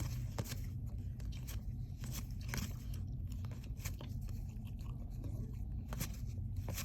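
Baseball cards being flipped through and sorted by hand: a string of irregular soft snaps and slides of card stock, over a steady low hum.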